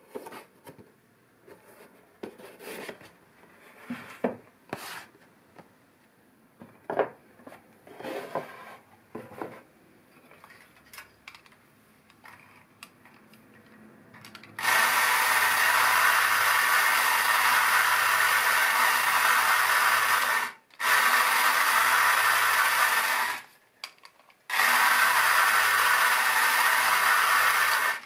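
Battery-powered 1957 Nomura Radar Robot tin toy's electric motor and gear train running with a steady grinding whir, switched on from its wired remote three times: about six seconds, then about two and a half, then about three and a half. Before that, a cardboard box is handled and set on the wooden table, with rubbing and a few knocks.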